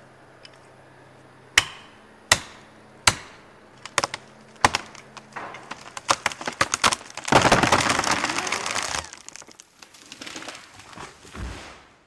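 Five sharp blows driving a felling wedge into the back cut of a huge conifer. The hinge wood then cracks and splinters as the tree tips, and the trunk crashes down about seven seconds in, with smaller cracks and thuds after.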